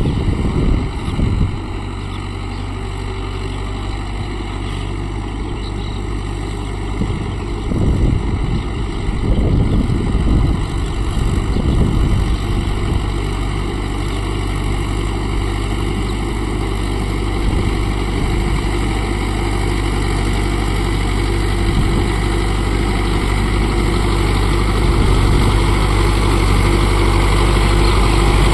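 Mahindra Yuvo Tech Plus 575 DI tractor's diesel engine running steadily, with louder rough surges about a second in and again around eight to twelve seconds in. It grows a little louder near the end.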